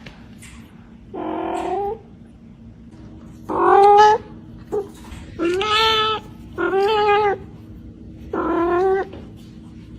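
Domestic cat meowing: five long, drawn-out meows in a row, the loudest about four seconds in.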